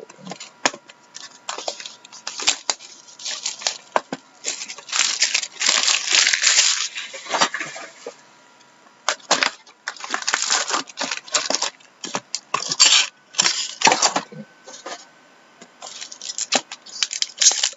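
Sealed hockey card boxes being cut open and unwrapped by hand: irregular scratchy tearing and crinkling in bursts, with sharp clicks and knocks as the cardboard is handled.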